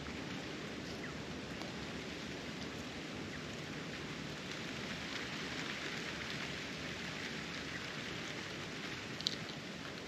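Steady rush of wind through foliage and grass, swelling a little midway, with a brief sharp tick near the end.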